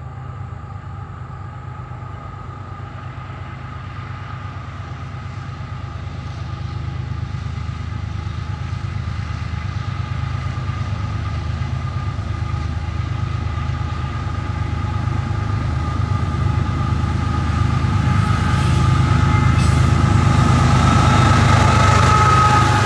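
Diesel freight locomotives approaching, their engine rumble growing steadily louder, with a steady whine that strengthens near the end.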